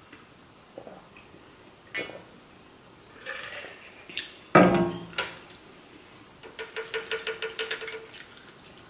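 Tableware being handled: a few light clicks, then a loud knock about halfway through as a plastic drink bottle is set down on the table. Near the end comes a quick run of about six clicks a second, cutlery working against the plate.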